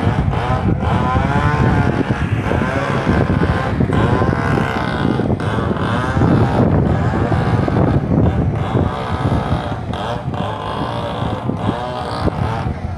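People's voices talking continuously over a steady low rumble.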